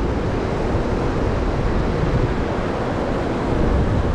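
Steady rushing noise of wind buffeting the microphone over flowing river water.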